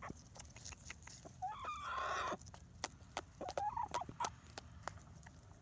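Pullets clucking while they peck at wet gruel in a handheld container: quick sharp taps of beaks on the container throughout, with a louder drawn-out hen call about two seconds in and a shorter cluck around four seconds.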